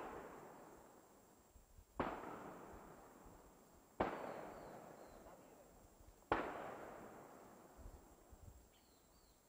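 Four gunshots during a wild boar hunt: one right at the start, then two about two seconds apart, and a last one a little over two seconds after those. Each shot rings out with a long echo that fades over a couple of seconds.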